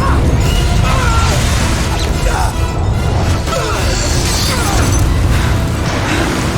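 Film sound mix of an avalanche: a continuous deep rumble under a dramatic music score, with voices crying out.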